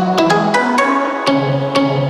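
Background music: an upbeat instrumental with plucked notes and a bass line, about four notes a second.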